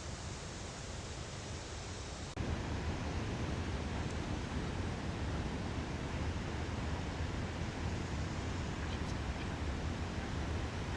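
Steady rushing of a waterfall. About two seconds in it jumps abruptly to a louder, deeper rush.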